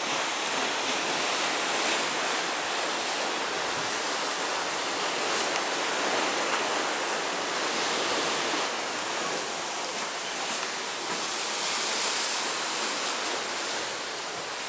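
Steady rush of sea water churning along the hull of a moving cruise ship, mixed with wind.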